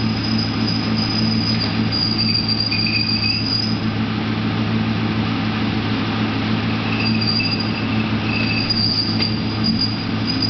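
1998 LS1 V8 running steadily while a high-pitched clutch-related screech comes and goes over it, in two stretches of about two seconds each.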